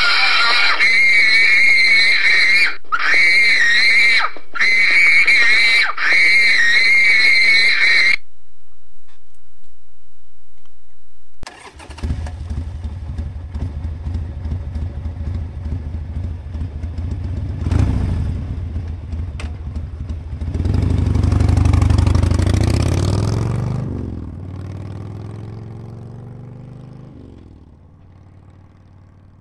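A high, wavering wail for about eight seconds, then after a brief lull a low engine rumble that swells about two-thirds of the way in and fades away with falling pitch, like a motor vehicle passing.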